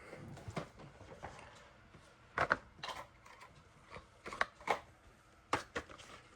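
Plastic fidget toys being handled: a string of irregular hard-plastic clicks and clacks, the loudest about two and a half seconds in.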